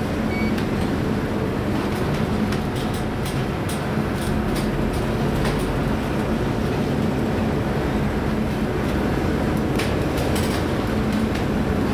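A ship pitching through storm seas, heard from inside its wheelhouse: a steady heavy rumble with a low hum under it, and scattered sharp ticks and rattles.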